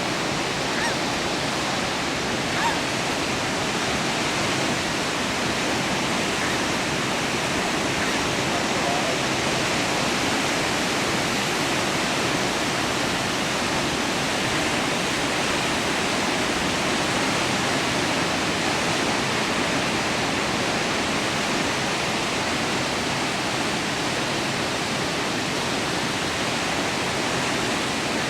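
Steady wash of ocean surf, an even hiss with no breaks or swells in level.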